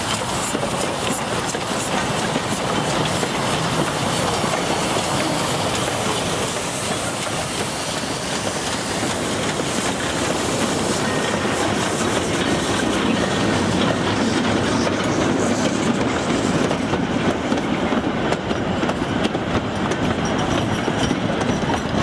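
Metre-gauge steam train passing close by, several steam locomotives and then a long string of wagons and carriages, their wheels running over the rails at a steady level.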